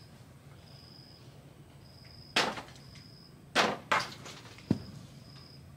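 Four sharp knocks: one about two and a half seconds in, a close pair just over a second later, then a sharper single one. Behind them a faint high chirp repeats about once a second.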